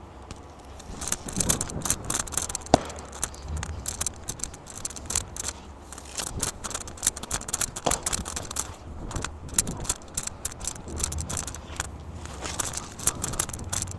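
Shoes stepping and scuffing on artificial turf, a dense run of small crackles and clicks, with a couple of sharper knocks about three and eight seconds in.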